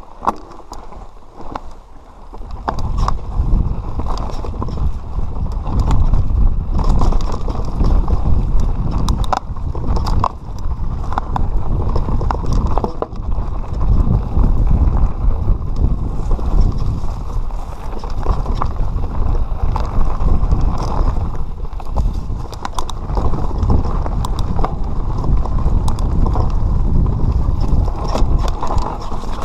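Mountain bike descending a rough trail: a heavy low rumble of wind buffeting the microphone, with tyre noise and frequent clicks and rattles of the bike over rocks and roots. It gets much louder about two and a half seconds in, as the bike picks up speed.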